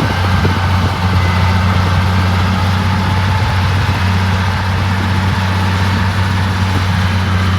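Bulldozer's diesel engine running steadily with a low, even hum.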